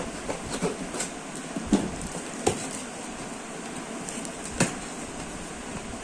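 A cardboard delivery box being opened by hand: a few short knocks and scrapes of cardboard, the loudest about four and a half seconds in, over a steady background hiss.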